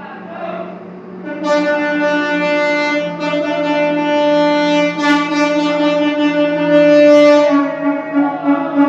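Garbage truck horn sounding one long steady blast, starting a little over a second in and held for about six seconds, over a lower steady hum; near the end it breaks into short repeated toots.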